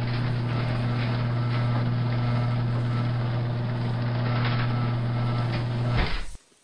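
Microwave oven running with a steady low hum, with faint scattered crackles over it. It cuts off abruptly about six seconds in.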